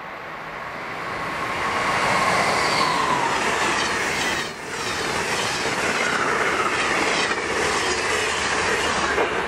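Electric passenger train passing at speed on the Northeast Corridor. A rush of wheels on rail grows over the first two seconds into a loud, steady rumble and rattle of cars going by, with a tone that falls in pitch about three seconds in.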